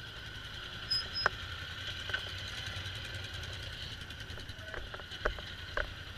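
Polaris Sportsman ATV engines running steadily at low speed while crawling over rock. Several sharp knocks break in, two about a second in and a few more near the end.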